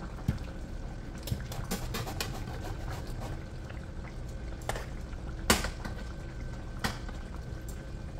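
A pot of okra and meat stew bubbling at a boil, with many small pops and, twice, a sharper click against the pot.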